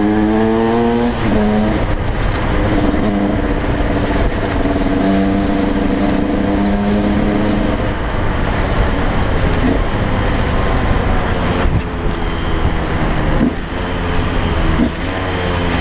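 KTM 125 EXC's two-stroke single-cylinder engine pulling through the gears on the road. Its revs climb and break off with upshifts near the start, run lower and steadier through the middle, then climb again with quick shifts near the end, over wind rush on the microphone.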